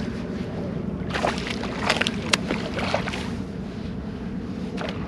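Steady wind and water noise around a bass boat on open water, with a few sharp clicks and knocks between about one and three seconds in.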